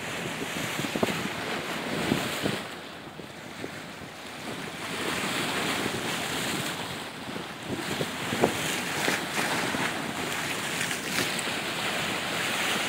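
Wind buffeting the phone's microphone over the wash of sea waves, easing off in a brief lull about three seconds in.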